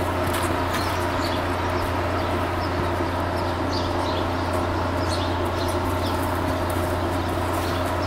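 Small birds chirping again and again over a steady low hum.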